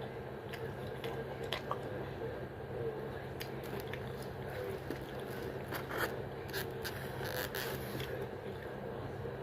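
Close-miked chewing and biting of a cheeseburger: wet mouth smacks and soft crunches at irregular moments, over a steady low hum.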